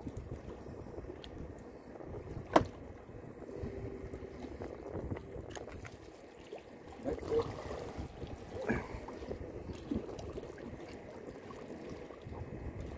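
Wind on the microphone and water lapping around a small fishing boat, with one sharp knock about two and a half seconds in and a few fainter knocks later.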